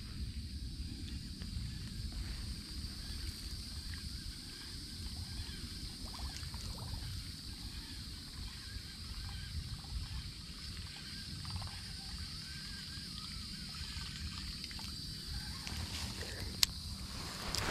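Quiet outdoor ambience: a low rumble and a steady high drone of insects, with soft handling noises and a couple of sharp clicks near the end from the baitcasting reel being handled.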